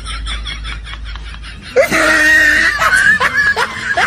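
Giggling laughter, then about two seconds in a long shrill cry, followed by short rising squeals.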